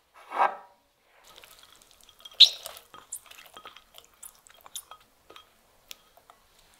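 Soaked rice and bulgur tipped from a small glass bowl into a large glass mixing bowl and scraped out with a spatula. A dull knock comes just after the start. About two and a half seconds in there is one sharp glass clink, followed by light taps and small wet plops as the grains drop in.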